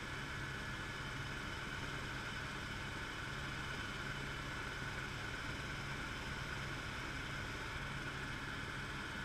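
Helicopter in flight, heard from inside the cabin: a steady drone of engine and rotor, with a constant low hum under a steady higher tone.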